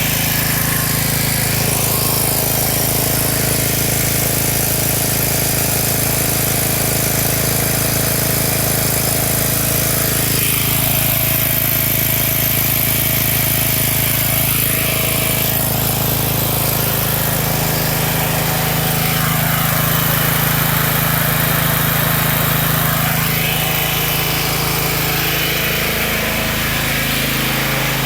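Generac Mega Force 6500 generator's GN-360 single-cylinder 13 horsepower engine running steadily after a valve job, with a low, even hum. The level dips slightly near the end.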